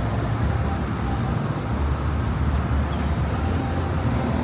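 Steady low rumble of city background noise with road traffic in it.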